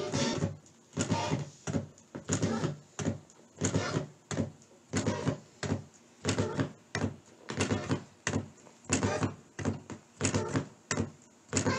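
A cut-up vinyl record playing on a turntable, the stylus chopping the groove into a looping rhythm of short, knocking bursts about twice a second.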